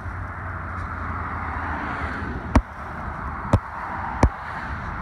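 Steady traffic noise from a busy multi-lane road, a constant rush with a low rumble. Three sharp clicks, the loudest sounds here, come in the second half, a little under a second apart.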